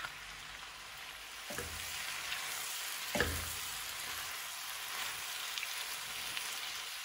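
Cabbage, onions and bell peppers sizzling gently in a skillet as they are tossed with metal tongs, with two short knocks about one and a half and three seconds in.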